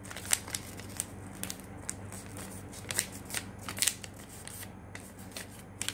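Folded paper being handled and creased by hand: irregular crisp rustles and crackles, with a few sharper snaps.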